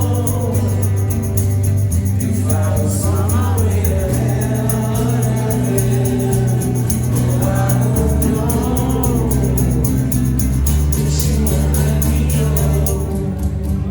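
Live acoustic band performance: strummed acoustic guitar chords changing every few seconds under singing, with several voices singing together and a steady quick rhythm in the highs.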